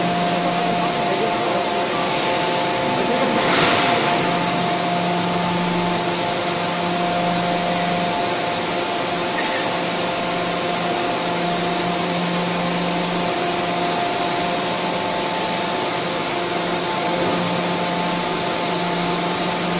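Steady drone and hiss of hydraulic forging-hammer machinery, with a low hum that comes and goes every few seconds. There is one brief louder rush about three and a half seconds in.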